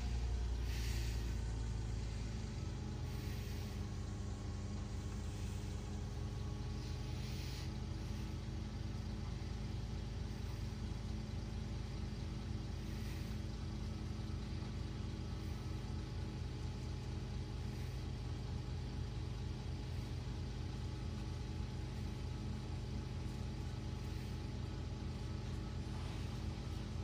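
LiAZ-5292.71 city bus heard from inside the cabin while driving: steady engine hum and road rumble, with a few short hisses in the first half.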